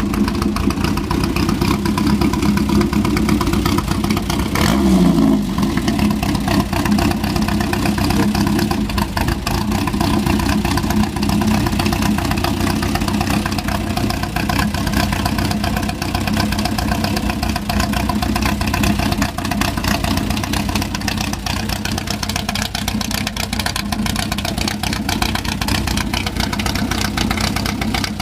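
Buggy engine running loudly at a steady idle during an engine tune-up, with one short throttle blip about five seconds in that rises and falls back to idle.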